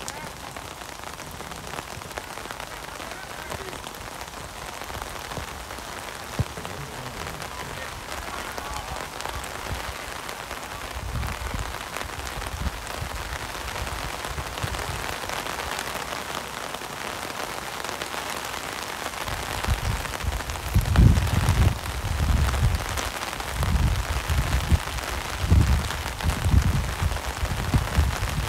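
Steady hiss of rain, with low rumbling buffets on the microphone starting about eleven seconds in and heaviest in the last third.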